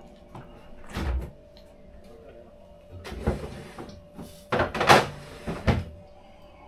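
Household handling noise, a door or cupboard kind of sound: a single knock about a second in, then a run of knocks and rattles from about three to nearly six seconds, the loudest near five seconds.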